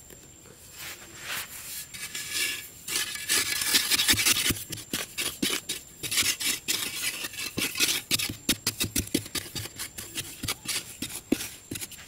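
A metal digging bar scraping and grinding against sandy soil as it is jabbed down into a narrow hole to loosen the sand, in rapid short strokes that grow more separate in the second half.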